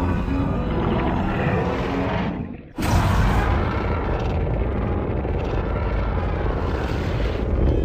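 Loud, dense rumbling film sound effect that drops away briefly a little before three seconds in, then comes back abruptly at full strength.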